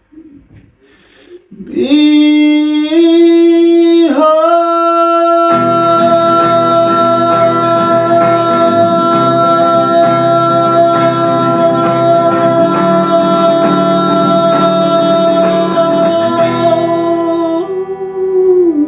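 A man singing one long wordless held note, sliding up into it twice in the first few seconds, over a strummed guitar and band that come in after about five seconds and stop near the end, leaving the voice alone.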